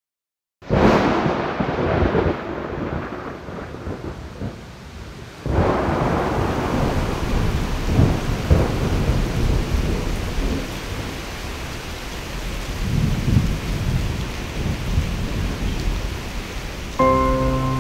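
Rain falling with rolling thunder, starting abruptly about half a second in, with several rumbling swells. A sustained musical chord comes in near the end.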